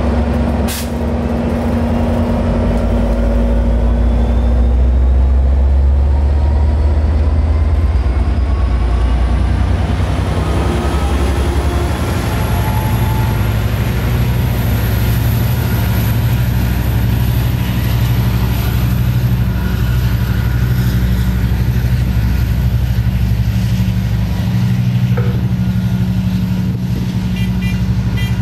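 Amtrak California diesel-electric passenger train moving past at close range, with a steady low engine drone as its locomotive goes by. A thin high whine climbs in pitch over the first twelve seconds or so, then holds. There is one sharp click about a second in.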